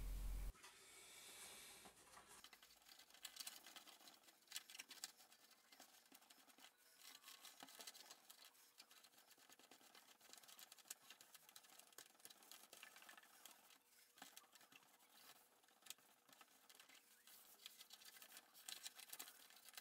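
Near silence, with faint scattered rubbing and light ticks from a damp paper towel wiping over the plastic top panel, knobs and faders of a cassette multitrack recorder.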